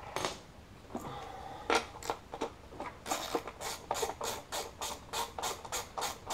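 Ratchet wrench with a 10 mm socket loosening a throttle body mounting bolt. It clicks in quick, even strokes about four a second from about three seconds in, after a few scattered metal taps and scrapes.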